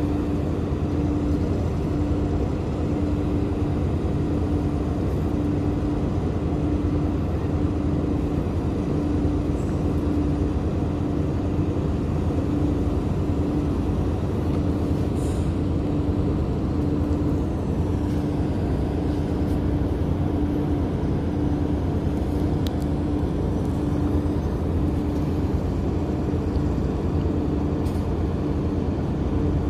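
Steady low diesel engine rumble of ship machinery, with a hum that pulses a little faster than once a second.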